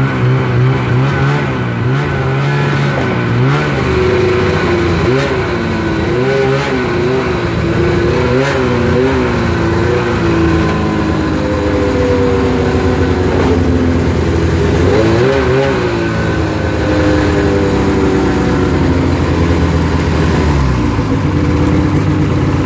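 Snowmobile engine running under throttle as the sled is driven up onto a trailer, its pitch rising and falling with repeated throttle changes, then holding a steadier, slowly falling note in the second half.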